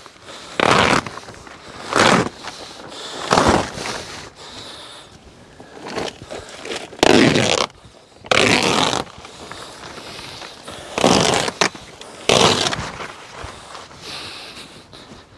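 Polythene polytunnel cover crackling and rustling in repeated bursts, each a second or less long, as it is tugged and dragged off the frame.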